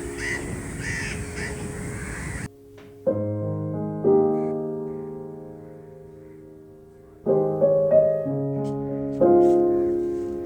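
Crows cawing repeatedly over outdoor background noise, with held piano notes underneath. About two and a half seconds in, this cuts off suddenly to solo piano music alone: slow chords struck a second or more apart, each ringing and fading.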